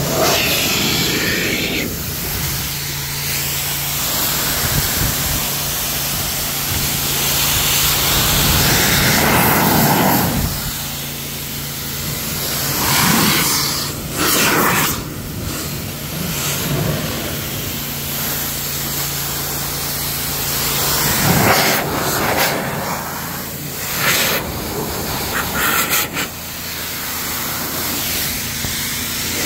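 Forced-air car-drying blower running through a flexible hose, its air blast hissing as the nozzle is swept over wet paint and glass. The blast rises and falls in loudness over a steady motor hum.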